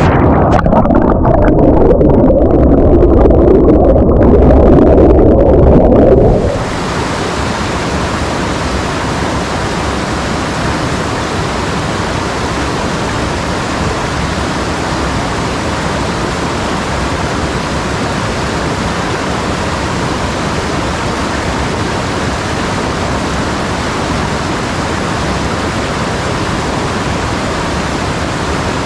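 Rushing mountain stream, first heard from underwater as a loud, deep, dull rush with little hiss; about six seconds in it changes suddenly to the quieter, even hiss of water tumbling over rocky cascades, which holds steady.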